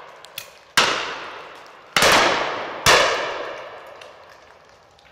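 Three shotgun shots, about a second apart, each report dying away slowly over a second or more.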